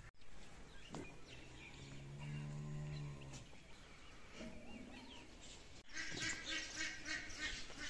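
A cow moos once, a long low call of about two seconds starting about a second in. Near the end comes a rapid run of high, squeaky cries.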